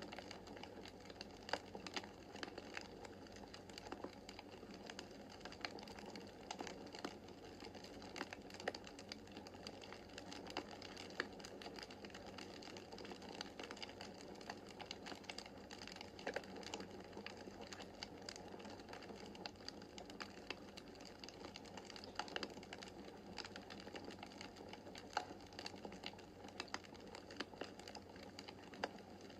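Wood fire crackling in a fireplace: irregular sharp pops and snaps from the burning logs over a soft, steady rush of flame.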